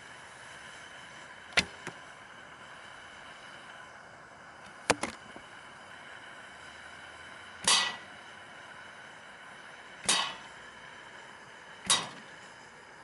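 Arrows from a bow striking a target: five sharp thwacks a few seconds apart, the last three a little longer, over a steady hiss.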